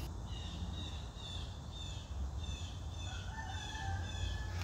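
Bird calls: a run of short, high, falling notes repeating about twice a second, joined by a longer, lower call about three seconds in, over a steady low rumble.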